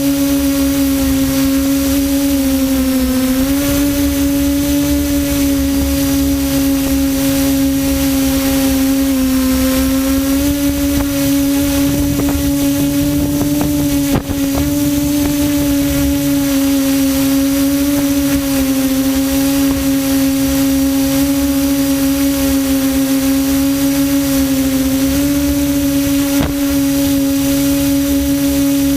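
QAV400 quadcopter's electric motors and propellers humming steadily in flight at one high pitch, which dips and recovers slightly a few times as the throttle shifts.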